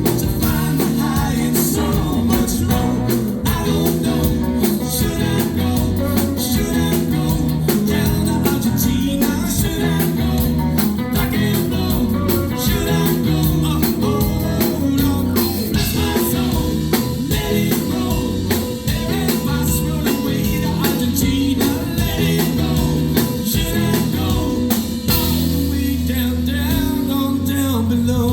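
Live rock band playing, with electric guitar and a drum kit keeping a steady beat.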